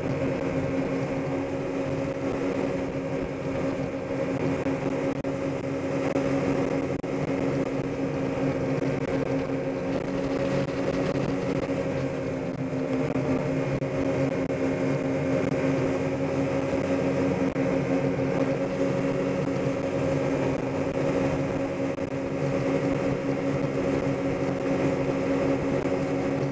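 Motorboat engine running steadily at speed while towing a tube rider, a constant even drone, with the rush of churning wake water underneath.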